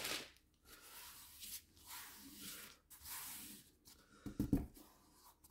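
Faint rustling of parchment paper being handled and lifted on a canvas, in soft patches, with two short soft knocks about four and a half seconds in.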